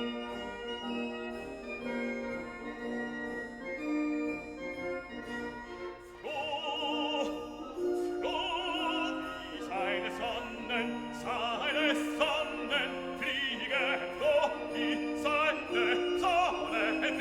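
Background music: keyboard-like accompaniment with steady stepped notes, then, about six seconds in, a classical singing voice with wide vibrato comes in over it.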